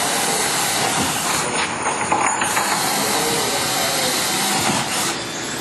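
Cordless drill running into the top edge of a structural insulated wall panel, heard as a steady, loud hiss.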